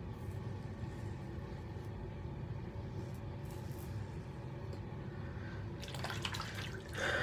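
Faint scratchy scrape of a double-edge safety razor cutting stubble through shaving lather, in short strokes that come thicker near the end, over a steady low room hum.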